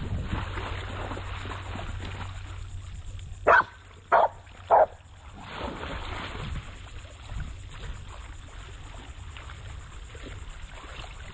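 Australian shepherd barking three times in quick succession, over the splashing of wading in shallow water.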